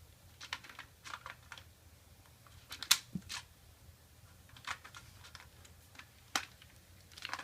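Plastic clicks and light knocks from an Imaginext toy dinosaur being worked by hand, irregularly spaced, with the sharpest click about three seconds in.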